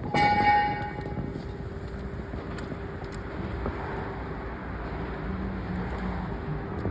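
A sharp metallic clang that rings on for about a second, followed by a steady industrial rumble with a faint hum.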